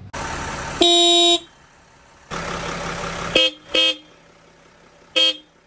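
Newly installed pair of aftermarket red disc horns from a CATuned off-road horn kit on a Mercedes Sprinter being sounded: one loud half-second blast about a second in, then three short toots. A steady rushing noise runs under the first blast and again just before the toots.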